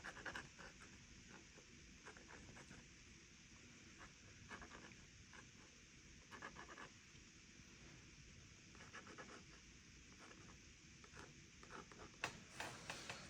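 Faint scratchy strokes of a paintbrush on sketchbook paper, coming in short clusters every few seconds over a quiet room hiss.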